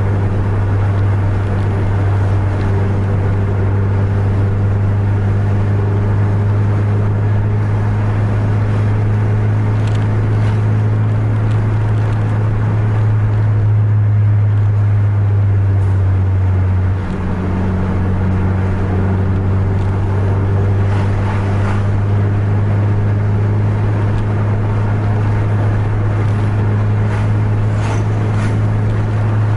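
A car's engine droning steadily at highway speed, heard from inside the cabin along with tyre and road noise. The drone dips briefly about seventeen seconds in, then carries on.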